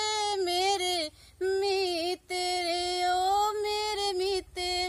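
A woman singing a Hindi film song unaccompanied, holding long sustained notes that bend in pitch, with short breaks between phrases about a second in, at about two seconds, and near the end.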